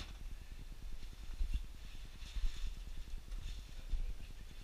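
Footsteps of people walking across a floor, with uneven low thuds and some clothing rustle, and a sharp click at the very start.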